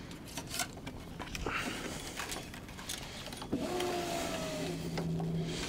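Racquet string rubbing as it is pulled through the weave. About three and a half seconds in, the electric tension head of a GAMMA electronic stringing machine starts pulling tension on a cross string: a small motor whining with a slightly falling pitch, then settling into a steady hum.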